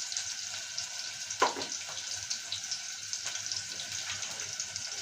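Onions frying in oil in a pan, with a steady crackling sizzle. About a second and a half in there is one short, louder sound that drops in pitch.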